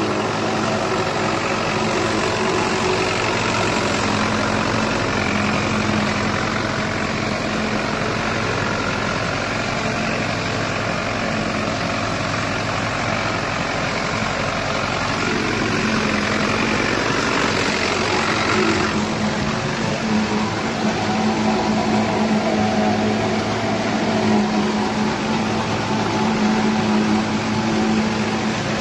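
Hürlimann H-488-T tractor's diesel engine running steadily under load while the Mengele 290 forage harvester it drives chops standing maize: a steady engine drone under a rushing hiss. The higher hiss eases about two-thirds of the way through.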